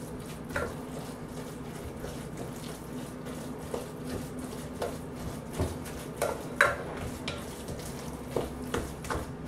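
A spoon stirring a wet ground-beef and bread mixture in a glass bowl: soft squelching with scattered knocks and clinks of the spoon against the glass.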